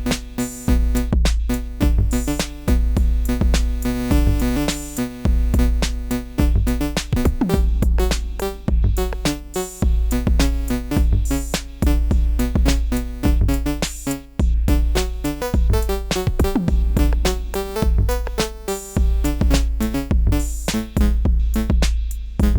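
Sequential Prophet-6 analog polysynth playing a preset as a fast run of short repeating notes over an Analog Rytm drum machine beat with a heavy kick drum.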